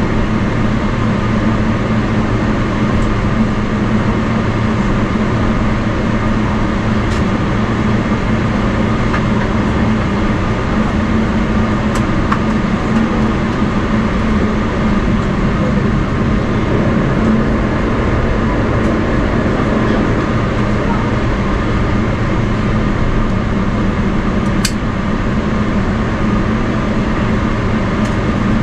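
Cabin noise of a Boeing 777-300ER taxiing, heard from a window seat by the wing: its GE90-115B engines at idle make a steady hum and rumble, with a few faint clicks.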